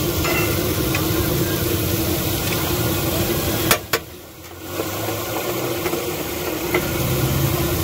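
Steady mechanical drone with a constant low hum. About four seconds in come two sharp metallic clicks, a metal spatula striking the steel griddle, and then the sound dips briefly.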